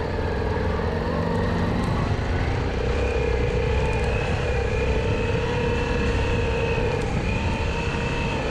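Honda Africa Twin XRV750's V-twin engine running under load at fairly steady revs as the motorcycle is ridden through sand, its pitch wavering slightly, over a low rumble.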